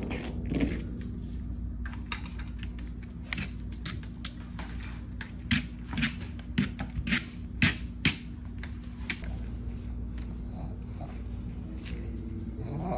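Scattered sharp clicks and taps, several in quick succession about halfway through, over a steady low hum.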